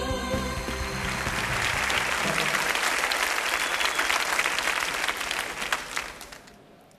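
Studio audience applauding, dying away near the end, while a music cue fades out in the first second or two.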